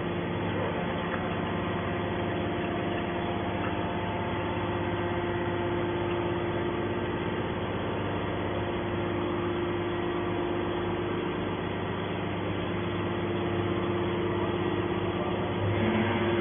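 Hydraulic baler's power unit running with a steady hum, its pump and motor holding several even tones, a little louder near the end.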